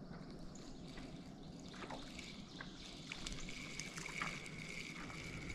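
Faint running-water hiss with scattered soft clicks from a spinning reel being cranked as a hooked fish is reeled in. A thin steady whine joins about three and a half seconds in.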